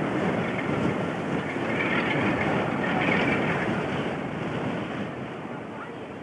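Diesel locomotive approaching on a main line, its engine and wheels on the rails making a dense rumbling rush that builds to a peak about three seconds in and then eases a little.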